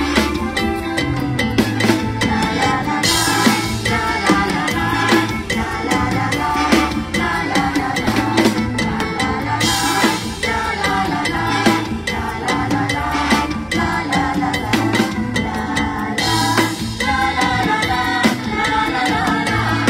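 Mor lam band music driven by a drum kit keeping a steady beat, with cymbals washing in three times.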